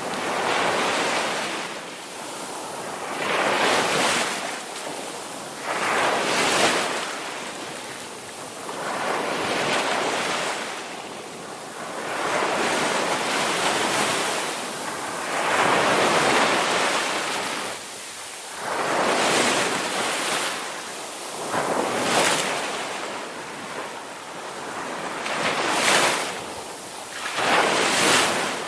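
Ocean surf: waves breaking and washing in, the rushing noise swelling and falling back every few seconds.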